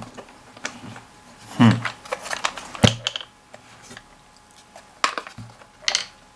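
Wooden puzzle box of thin laser-cut plywood being handled and turned in the hands: scattered sharp clicks and light knocks of wood on wood as its slider sticks are moved, the loudest about three seconds in.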